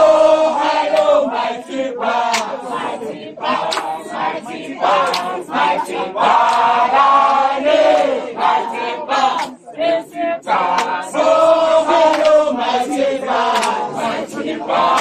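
A crowd of mourners, men and women, singing and chanting together in chorus, with a brief pause about two thirds of the way through.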